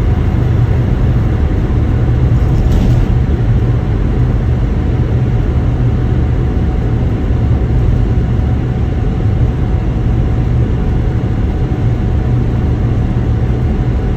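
Steady low rumble of a van on the move, engine and road noise with no change in speed.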